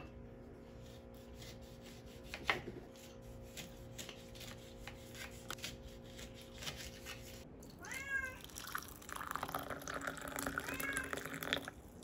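Kitchen knife cutting a lemon on a plastic cutting board, with soft knocks as the blade meets the board. A cat meows about eight seconds in and again more faintly near the end, and water is poured over the last few seconds.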